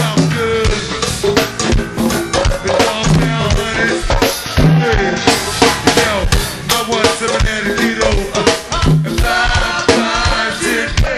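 A live go-go band playing a steady, driving groove, led by drum kit and percussion with bass drum and rimshot hits, and instruments over the top.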